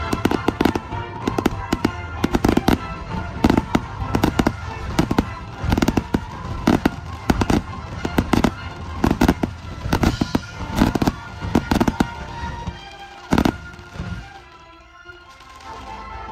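Aerial firework shells bursting in a rapid barrage of loud bangs and crackles. The bangs thin out near the end, with one last big bang about thirteen seconds in before it goes quieter.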